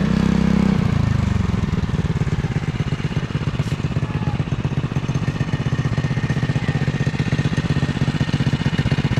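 Cyclekart's small single-cylinder engine running loud as the kart comes close, then its pitch drops about a second and a half in and it settles into a steady, rapid chugging idle.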